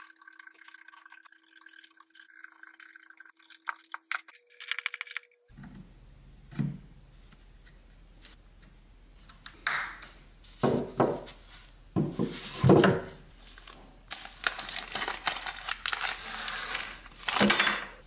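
Screwdriver work on a Milwaukee M12 impact driver's plastic housing: clicks and scrapes as a screw is backed out and a metal clip is pried out of the battery well, with small metal parts clinking onto a wooden bench. The clicks and clatter come in short irregular clusters and are loudest in the second half.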